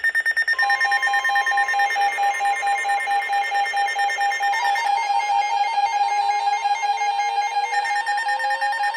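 Weather alert radios sounding their alarms for an incoming severe thunderstorm warning: several fast-beeping alert tones at different pitches at once, one of them switching to a stepping warble about halfway through.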